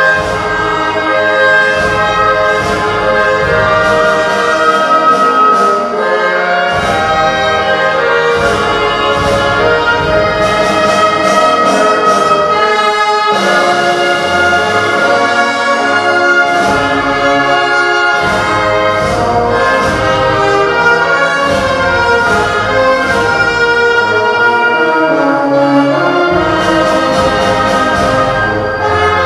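Orchestral music led by brass, playing held notes, during a minute of remembrance.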